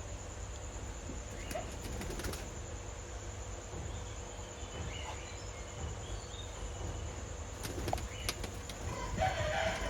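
Ring-necked parakeets fluttering and shuffling about in an aviary, with faint scattered clicks and chirps over a steady background hiss. A brief burst of calls comes near the end.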